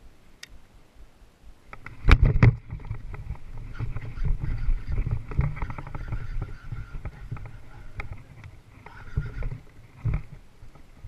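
Loud knocks of rod and boat handling about two seconds in, then several seconds of rapid clicking and whirring from a baitcasting reel being cranked to wind in a hooked fish.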